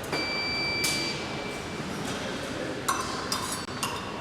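Épée blades clashing and scraping: a sharp metallic clink about a second in, then a quick run of ringing clinks near the end. A steady high electronic beep sounds over the first second and a half.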